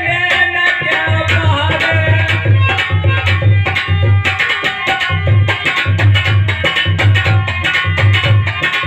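Instrumental interlude of a dehati folk bhajan: a hand drum plays a fast, steady beat under a held melody line, with sharp clicks on the beat.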